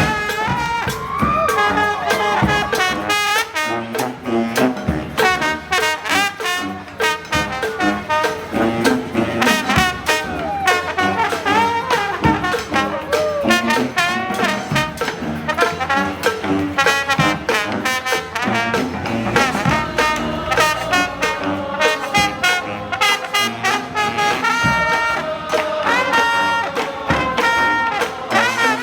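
Community street brass band playing a New Orleans brass band tune live: trombones and trumpets over a steady drum beat, with repeated held horn notes near the end.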